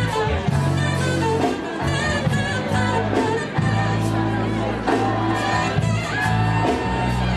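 Live band music: bass guitar holding low notes that change every second or so, with guitar and regular drum and cymbal hits keeping a steady beat.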